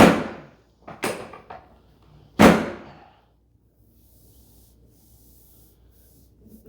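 Three loud, sharp thuds about a second apart, each with a short ringing tail; the first and third are the strongest.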